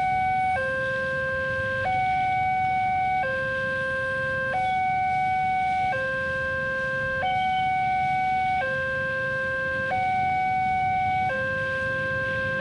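Railway level-crossing warning alarm sounding its two-tone signal, switching evenly between a high and a low tone about every second and a half, the warning that a train is approaching and the barrier is closed.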